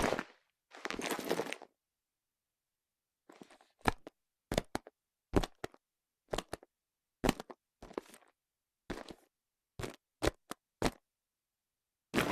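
A pleather handbag with a metal chain strap being handled on a hardwood surface. First come a brief rustle and a longer scrape of the bag. After a short pause there is a long series of short, sharp knocks and taps, often in quick pairs, as the bag and its chain are set down and flipped over.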